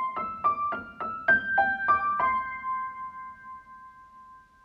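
Short keyboard melody in piano tone: about nine quick notes, the last one held and ringing out as it slowly fades.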